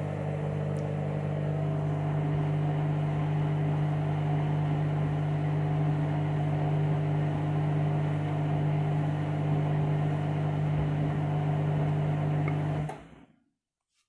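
Front-loading washing machine's drum motor running as the spin starts: a steady low hum with a few steady higher tones over the sound of the turning drum. It cuts off suddenly near the end.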